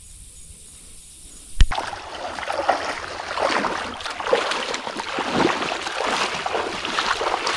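Quiet at first, then a sharp click about a second and a half in, followed by steady irregular splashing and sloshing of a person wading through shallow swamp water while dragging a dead wild hog.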